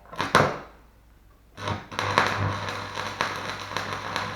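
Stick electrode tapped twice against the metal to strike an arc, then, about a second and a half in, a steady electric arc welding crackle and hiss with a low hum underneath.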